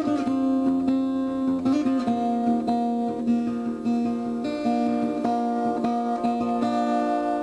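Background music played on acoustic guitar, plucked and strummed notes with a steady rhythm.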